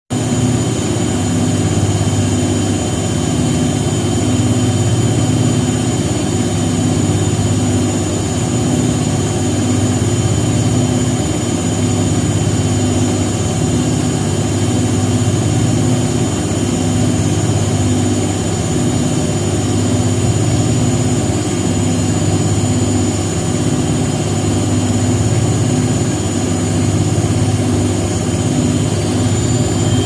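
Washing machine in its spin cycle, the drum turning at a steady speed: a low hum and whir that pulses regularly, with a thin steady high whine above it.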